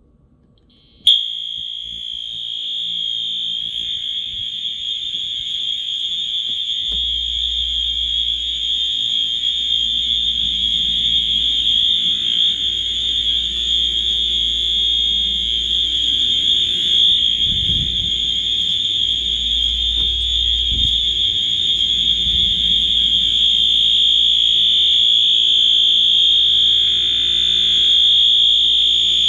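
First-generation Wheelock AS horn/strobe fire alarm sounding its electronic horn, which starts about a second in and holds one loud, steady, high-pitched continuous tone without breaks. The unit has no code-3 option, so it only sounds continuous.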